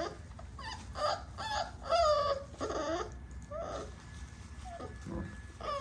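Litter of six-week-old American bully puppies whining and yipping in short, high calls. The calls come in quick succession for the first two seconds or so, then more sparsely.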